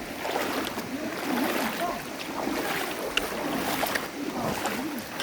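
Mountain stream water rushing steadily over rocks, a fast, strong current.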